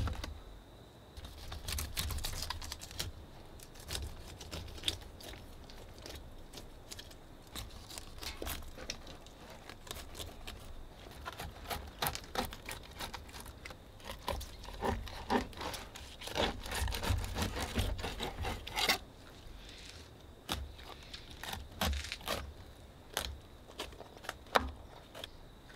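Filleting knife cutting and scraping through a snapper on a plastic cutting board, with many short, irregular scrapes and clicks as the blade works along the bones, busiest in the middle.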